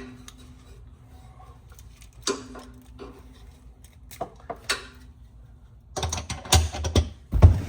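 Metallic clicks and knocks from a roof-access door or hatch and its latch being handled, then a run of louder thumps and clanks near the end as it is worked open onto the roof.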